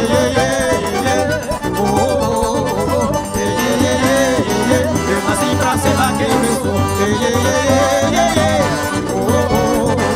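Live forró band playing: a sanfona (piano accordion) carrying the melody over a zabumba bass drum and electric bass.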